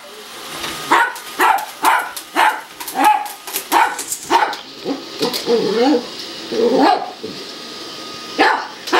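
Dog barking repeatedly, about two sharp barks a second. Around the middle the barks give way to a few seconds of warbling whines that slide up and down in pitch, and the barking starts again near the end.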